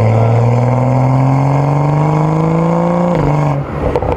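BMW M235i's turbocharged N55 inline-six pulling under steady acceleration, its pitch climbing slowly. About three seconds in the pitch drops suddenly and the sound turns uneven and choppy.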